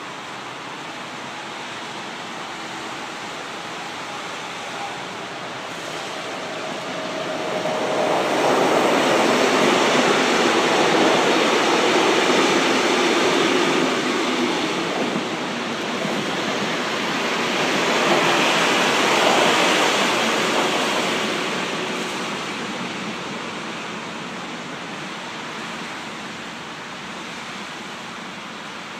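A passenger train hauled by a BLS Re 425 electric locomotive passes at speed, with the rushing rumble of its wheels on the rails. The sound swells about seven seconds in, stays loud with a second peak past the middle, then fades away over a steady background hiss.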